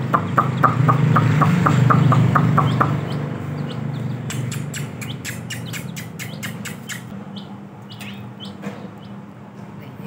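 Chicks peeping in quick, evenly spaced pulses over a low hum for the first few seconds, then a run of quick sharp taps from beaks pecking at a steel water dish, with a few short peeps near the end.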